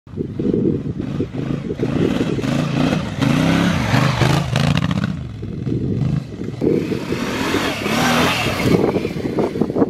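Honda Africa Twin adventure motorcycle engine revving hard in deep sand, its pitch rising and falling again and again as the rear wheel digs in and throws sand. About seven seconds in, a twin-cylinder Honda Transalp 600 runs close by under throttle.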